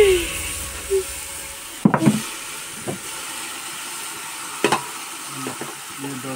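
Food poured from a soot-blackened cooking pot into an aluminium pot: metal knocking on metal a couple of times, about two seconds in and again near five seconds, over a steady hiss.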